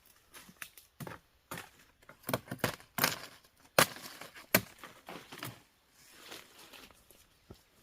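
A series of irregular sharp knocks and cracks, about a dozen over several seconds, loudest around the middle.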